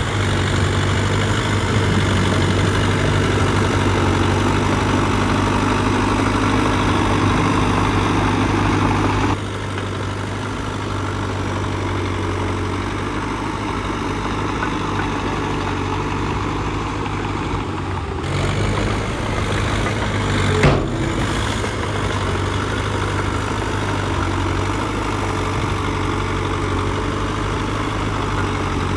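Diesel engine of a Cat D3K2 XL bulldozer running steadily with a deep hum. The sound drops suddenly about nine seconds in, and there is one short sharp knock about two-thirds of the way through.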